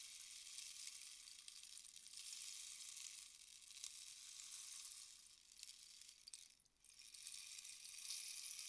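Rainstick tilted slowly, its pellets trickling down inside in a faint, even hiss. The trickle dies away about six and a half seconds in and starts again as the stick is turned over.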